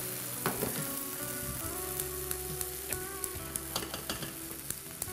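Strips of beef sizzling as they fry in a pan on a gas hob, a steady hiss. A wooden spoon stirs a neighbouring pot, with scattered clicks of utensils against the cookware.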